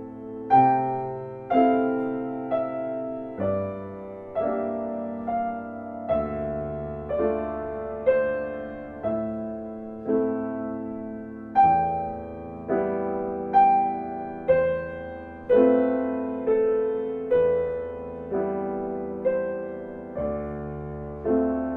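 Background piano music: slow, gentle chords and notes, each struck and left to fade.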